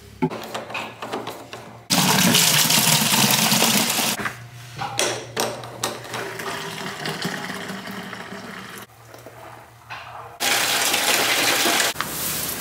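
Liquid running hard into plastic containers, in two gushes of about two seconds each, with clunks and knocks of plastic calf bottles being handled in between.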